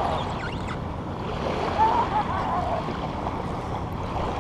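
Small waves washing on a sandy shoreline with wind on the microphone, and a brief voice-like sound about two seconds in.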